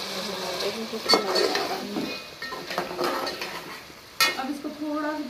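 Metal spoon stirring chunks of mutton in an aluminium cooking pot, knocking and scraping against the pot, with two sharp clanks about a second in and about four seconds in, over a faint sizzle.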